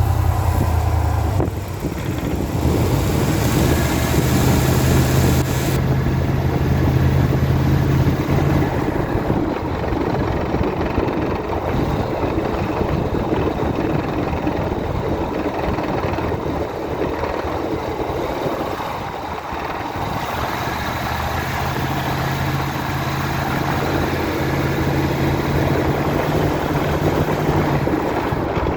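Ford Econoline E150 van's engine and drivetrain running, with a low steady drone that is strong at first, fades through the middle and comes back near the end. This is the strange sound the owner puts down to a torque converter or E4OD automatic transmission problem.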